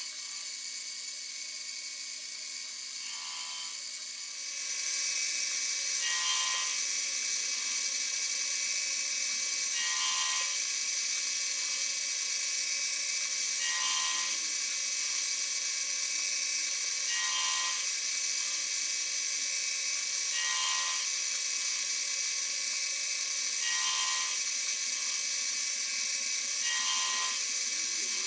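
Harbor Freight mini-mill spindle running with a high steady whine as its gear cutter cuts teeth into a brass gear blank. It gets louder about four seconds in, and a short sound recurs roughly every three and a half seconds.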